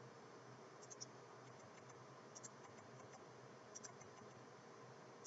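Near silence: faint room hiss with a few soft computer-mouse clicks, three short double clicks spaced about a second and a half apart.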